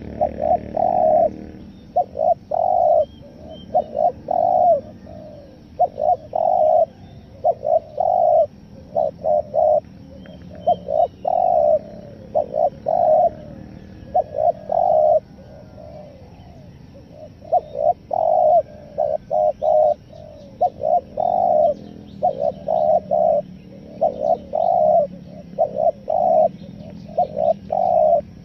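Spotted dove cooing in repeated phrases of three or four short coos, one phrase every second or two, some broken in a stuttering rhythm: the call style used to lure wild spotted doves. Faint high chirps of small birds sit behind it.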